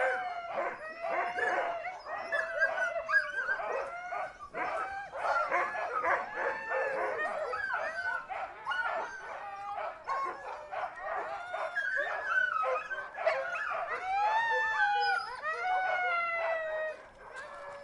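A pack of huskies barking, yipping and howling all at once, many voices overlapping without a break, with several long rising-and-falling howls among the barks.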